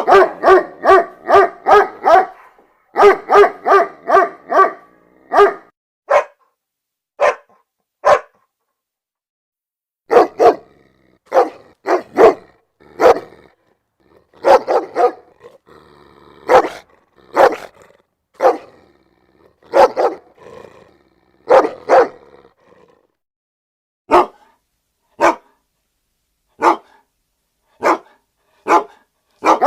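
Dog barking loudly: quick runs of five or six barks in the first few seconds, then single barks and short pairs with pauses between.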